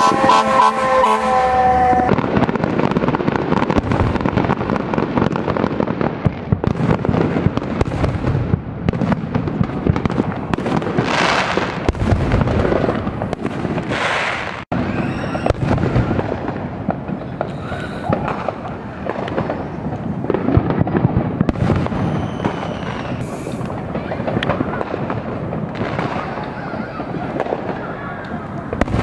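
A fire engine's horn blares as a stack of steady tones that drops in pitch and stops about two seconds in. Then many fireworks go off without pause: dense bangs and crackling, with a few short whistles.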